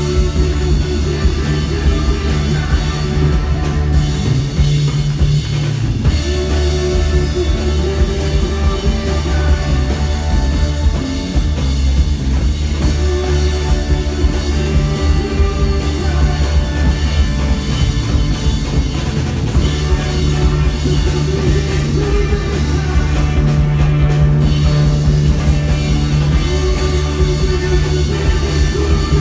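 Live rock band playing an instrumental passage: electric guitar and bass guitar over a drum kit, with a phrase that comes round about every six or seven seconds.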